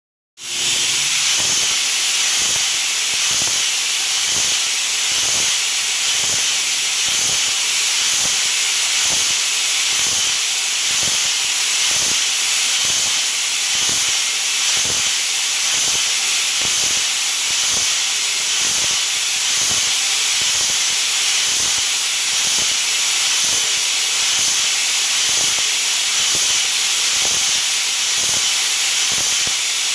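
Vertical machining center shaping a tapered keyway: the keyway tool strokes through the bore with a regular knock a little faster than once a second, over a loud steady hiss.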